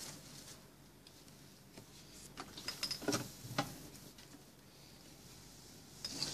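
Fabric being slid and smoothed by hand across a sewing machine table: soft rustling with a few light knocks and clicks, a couple of them about three seconds in and a few more near the end.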